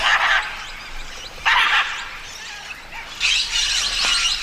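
A flock of parrots calling: two loud calls about a second and a half apart, then from about three seconds in many birds calling at once in a dense chatter.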